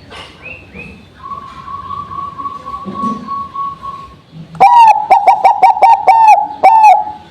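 Zebra dove (Bangkok-type perkutut) singing: a steady held note, then a loud run of quick, staccato coos in the second half.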